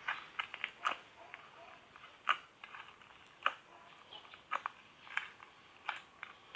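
Slime being squeezed and poked by hand, making irregular sharp clicks and crackling pops, a few each second.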